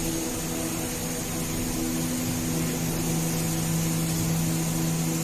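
Plastic injection moulding machines running: a steady machine hum with several held low tones over a constant hiss.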